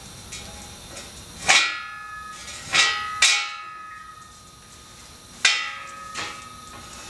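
Heavy steel angle iron knocked and shifted on a steel stand: four loud metallic clanks and a lighter one, each ringing on briefly.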